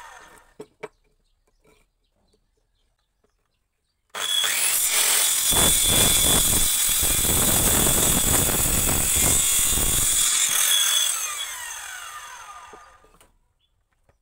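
A handheld circular saw starts suddenly about four seconds in and cuts through a piece of wood for about five seconds. It then runs free and winds down, its whine falling as the blade coasts to a stop. Before it starts there are only a few light knocks.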